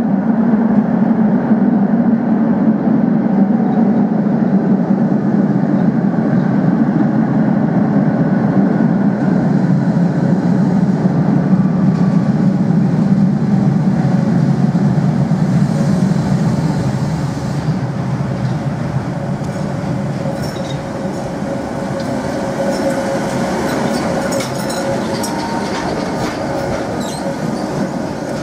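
Tram running through a tunnel with a steady low rumble. In the second half come sharp wheel-on-rail clicks and a faint steady whine.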